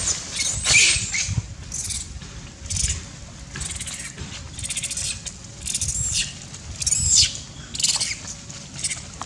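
Long-tailed macaques giving short, high-pitched screams, about one a second, as hungry monkeys calling for food.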